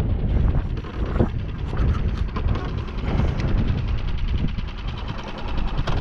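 Small gasoline outboard motor running steadily at trolling speed, with wind buffeting the microphone. A single knock just over a second in.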